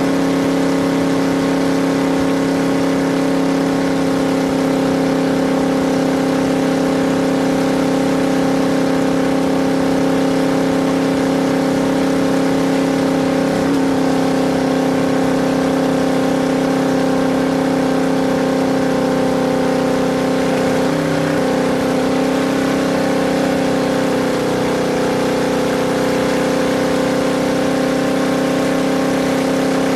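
A vehicle engine running at a steady pitch, holding nearly constant speed, with brief wavers in pitch about a third and two-thirds of the way through.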